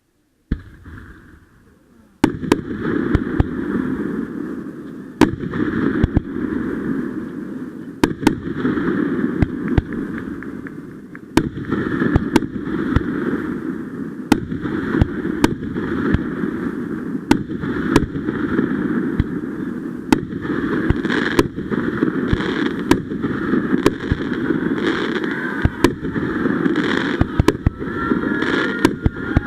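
Fireworks going off: after a faint start, a dense run of crackling with many sharp bangs begins suddenly about two seconds in and keeps up, with a brief whistle near the end.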